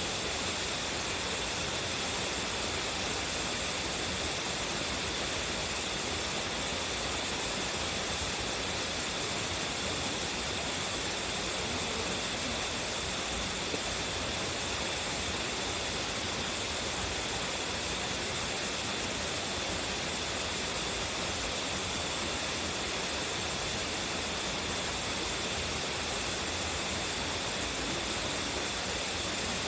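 Tsuzumigadaki waterfall's strong flow of water pouring and splashing, a steady, unbroken rush.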